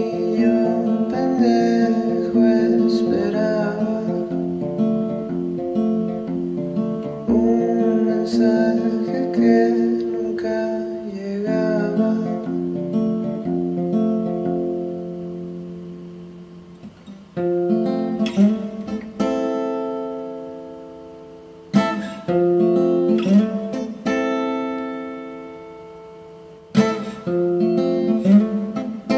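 Acoustic guitar song: a man sings in Spanish over picked guitar for roughly the first half. In the second half, single guitar chords are strummed every couple of seconds and left to ring down.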